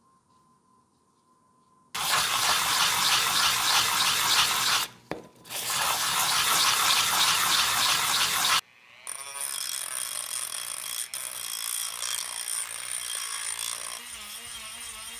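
About two seconds of near silence, then a loud, even rush of noise lasting about six seconds with a short break in the middle. It gives way to a handheld rotary tool running with a steady high whine.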